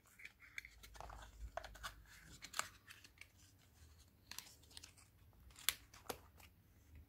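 Makeup compacts and packaging being handled: faint scattered clicks and light rustling, with a few sharper clicks as the cases are moved or opened.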